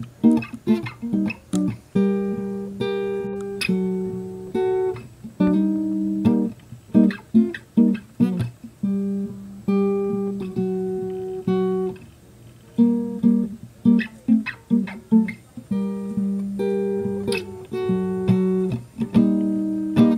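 Background music of an acoustic guitar picking single notes and strumming chords.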